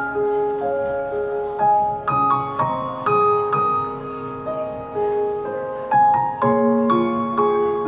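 Instrumental music led by a piano-like keyboard, playing a slow melody of held notes over a lower accompaniment.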